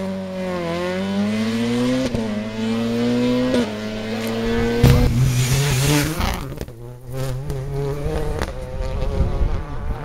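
Rally car engine at full throttle, rising in pitch with two upshifts about two and three and a half seconds in. Then it cuts to other rally cars, with a dip near seven seconds and a steadier engine note near the end.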